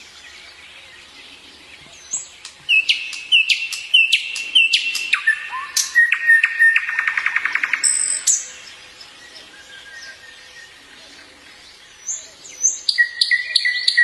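Nightingale singing: after a short quiet start, a phrase of high whistled and repeated notes that ends in a fast trill, a pause of a few seconds, then a new phrase beginning near the end.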